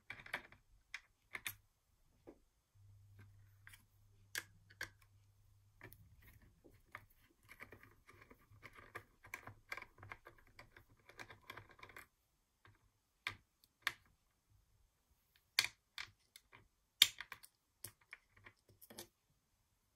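A screwdriver working the small gold screws out of the underside of a Brother KH840 knitting-machine carriage: scattered light clicks, a few seconds of quick clicking and scraping in the middle, then several sharper clicks.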